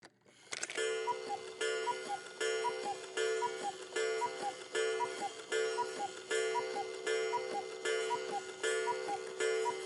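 Cuckoo clock calling, about a dozen falling two-note cuckoos in a row, evenly spaced a little under a second apart.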